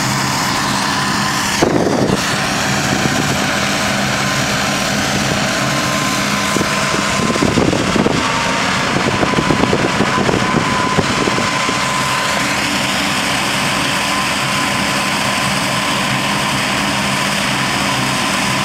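Tractor engine running steadily as it pulls and drives a Krone trailed mower through the field, with a steady high tone above the engine. Louder irregular crackling comes in for a few seconds in the middle.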